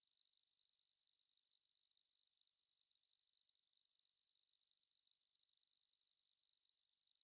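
A synthesized sine tone mimicking tinnitus ringing: a single, very high-pitched steady tone that holds unchanged in pitch and loudness.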